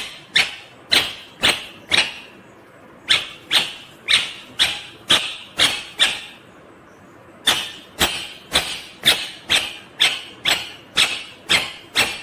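Indian ringneck parakeet calling: a run of short, loud calls about two a second, each starting abruptly and trailing off, in three bouts with brief pauses between.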